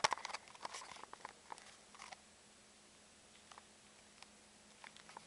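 Camera handling noise: a sharp click at the start, then scattered small taps and rubbing clicks from fingers moving on the camera body, over a faint steady hum.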